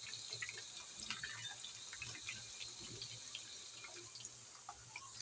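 Cornflour-coated potato slices deep-frying in hot oil: a faint steady sizzle with scattered small crackles and pops. The slices are fried and ready to come out.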